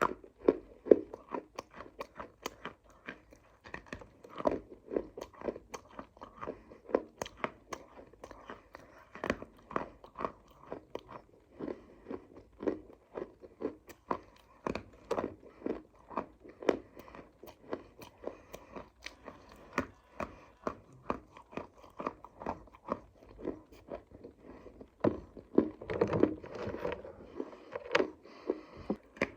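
Close-up crunching and chewing of hard, crunchy clay (mitti), bitten off in sharp cracks a few times a second, busiest about 25 seconds in.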